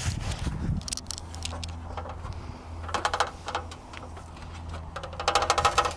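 Rapid ratchet-like clicking and metallic rattling from a ladder and extension pole being handled while climbing down. The clicking comes in short runs, once about three seconds in and again near the end, over a low steady hum.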